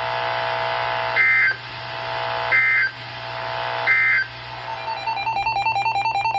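NOAA Weather Radio EAS end-of-message data signal: three short warbling digital bursts about a second apart over a steady background tone, marking the end of a tornado warning. About two-thirds of the way through, a rapid pulsing beep begins.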